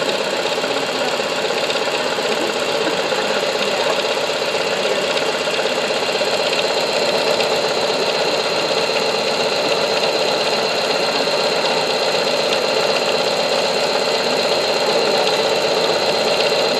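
Singer sewing machine running steadily at speed, stitching a monogram pattern with a twin needle, with a steady high whine from the motor.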